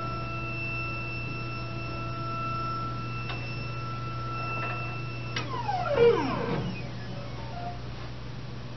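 Vatech Pax-i3D Green dental cone-beam CT unit scanning: a steady high whine over a low hum as the gantry rotates around the phantom during the X-ray exposure. The whine cuts off about five seconds in, then a falling whine follows as the machine winds down at the end of the exposure.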